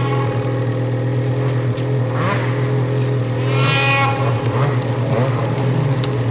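Snowmobile engine idling steadily close by, while a second snowmobile's engine rises and falls in pitch twice, about two seconds and three and a half seconds in, as it ploughs through deep powder toward it.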